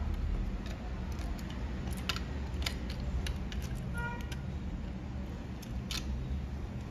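Electronics repair bench during phone board work: a steady low hum with scattered light clicks of small tools, and a short electronic beep about four seconds in.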